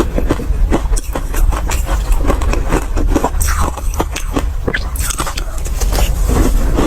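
Ice being bitten and chewed close to the microphone: a dense, irregular run of crisp crunches and cracks as an ice ball breaks between the teeth.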